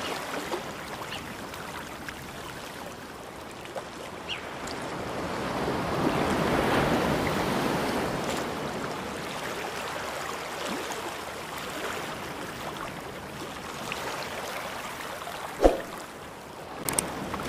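Ocean waves washing in and out, swelling to a peak in the middle and easing off again. A short pop comes near the end.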